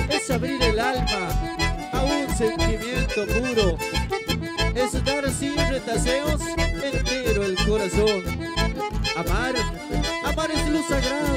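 Live instrumental dance music with an accordion carrying the melody over a steady bass and drum beat.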